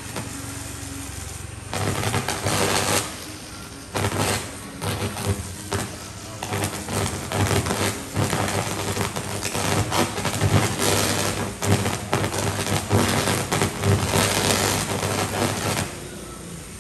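High-voltage electrical arc at a pole-mounted transformer's insulators and switch contacts, buzzing with a low mains hum and crackling loudly in uneven bursts: a live line fault burning. It flares up about two seconds in and dies down near the end.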